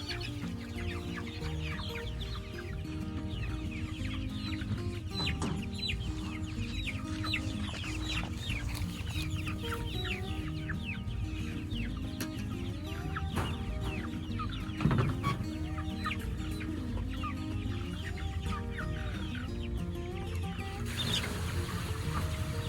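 A flock of young meat chickens peeping and clucking continuously, many quick falling chirps overlapping, with background music underneath.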